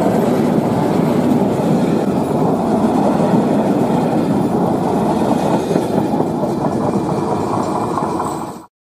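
Diesel-hauled passenger train passing close by: the locomotive's engine gives way to the steady, loud rush and clatter of double-deck coaches' wheels running over the rails. The sound cuts off abruptly near the end.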